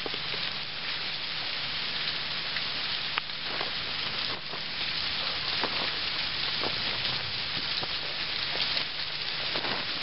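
Partly frozen waterfall with water still falling and spattering behind the ice: a steady hiss with scattered small crackles.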